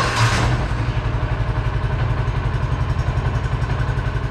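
John Deere Gator TS engine starting and running steadily with an even rapid pulse. It is being run just after an oil change to fill the new oil filter and check for leaks.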